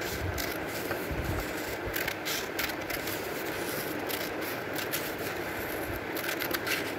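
Scissors cutting a sheet of A4 paper: a run of irregular, crisp snips with paper rustling, about one every half second, over a steady background hiss.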